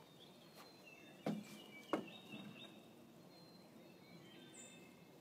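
Two sharp wooden knocks, a little over a second in and again at about two seconds, as the long stick held crosswise in a dog's mouth bumps against the footbridge railing. Birds chirp faintly in the background.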